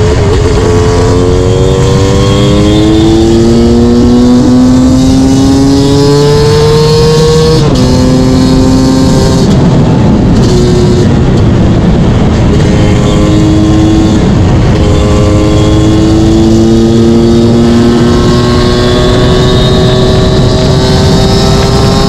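Yamaha YZ250 two-stroke engine pulling hard under acceleration. Its pitch climbs in long sweeps and drops sharply between them, as on gear changes.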